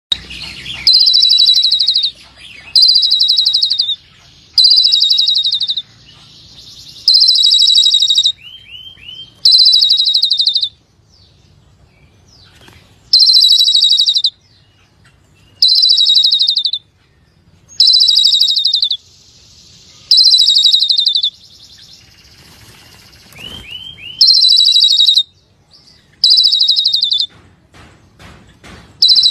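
Asian pied myna (jalak suren) singing in full voice: loud, buzzy phrases about a second long, repeated every two seconds or so. Twice a quick run of short whistled notes comes between phrases.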